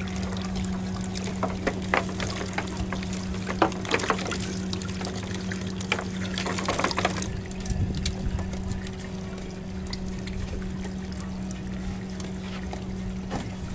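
Water pouring and dripping from a wet cast net being shaken out over a boat's livewell, with scattered clicks and rattles in the first half, over a steady low hum.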